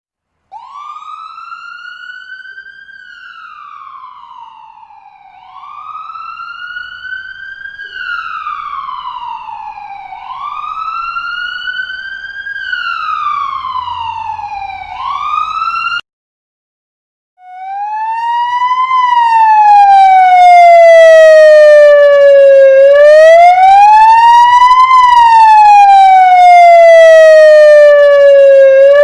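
Two emergency-vehicle sirens, one after the other. The first wails up and falls back about every five seconds, growing louder, and cuts off about sixteen seconds in. After a short silence a louder, lower-pitched siren starts, sweeping slowly up and down in a wail about every six seconds.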